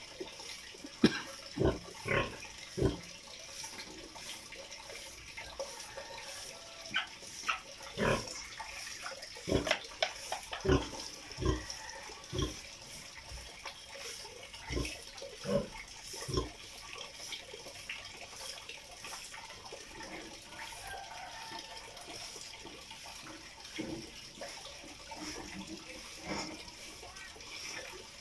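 Sow lying in a concrete pen, making a string of short, irregular noises, most of them in the first half.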